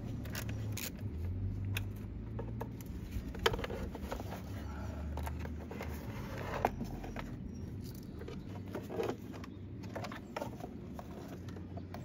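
Scattered light clicks and knocks of a socket tool working the 10 mm nuts and of the plastic engine cover being handled and lifted off, over a low steady hum.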